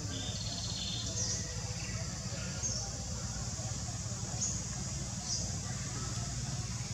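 Outdoor tree-canopy ambience: a steady high insect-like drone over a low rumble, with a short high chirp about four times.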